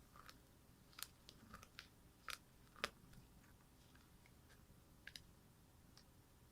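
Near silence with a few faint, irregular clicks and ticks from a resting cat, the small mouth and claw sounds of grooming or kneading.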